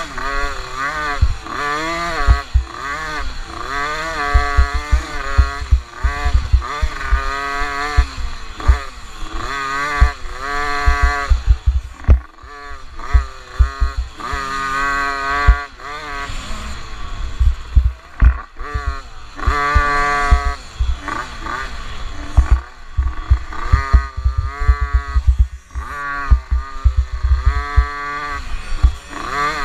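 A 50cc youth motocross bike's engine, heard from an onboard camera, revving up and dropping back over and over as the rider opens and shuts the throttle, with brief dips near the middle. Heavy low buffeting and knocks run under it.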